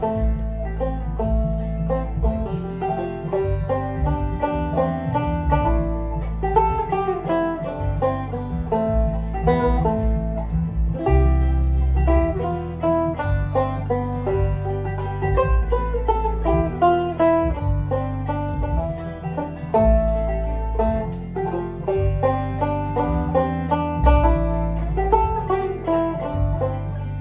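Deering Clawgrass 2 five-string banjo played clawhammer style, a steady stream of plucked melody notes. Under it runs a computer-generated Band-In-A-Box backing track with a sustained bass line.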